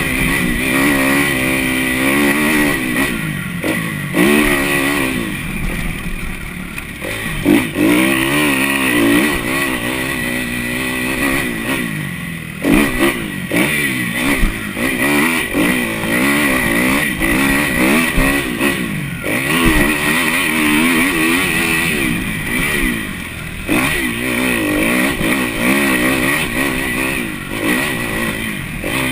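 Kawasaki KX250F four-stroke single-cylinder motocross engine under hard riding, its pitch repeatedly climbing and dropping as the throttle is opened, shifted and rolled off.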